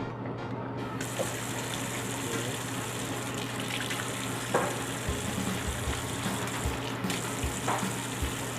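Water running steadily from a tap and splashing as a parrot bathes its head under the stream, with a few soft knocks in the second half.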